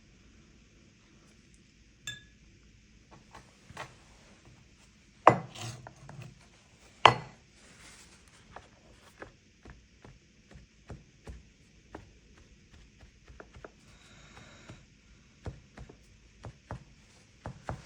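Small art supplies handled and set down on a tabletop: a run of light clicks and taps, with two louder knocks about five and seven seconds in.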